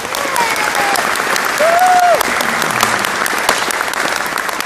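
Audience applauding, with a few short shouted cheers rising over the clapping in the first two seconds.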